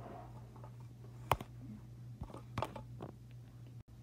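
Quiet room tone with a steady low hum, broken by a few short knocks or clicks, the sharpest about a second in.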